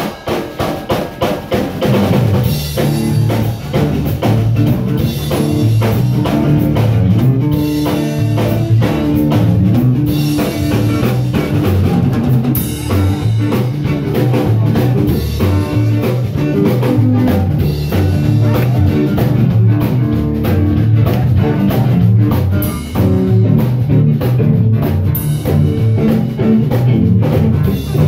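Live blues band playing an instrumental passage on drum kit, electric guitar and bass guitar. The drums play alone at first, and the bass and guitar come in about two seconds in.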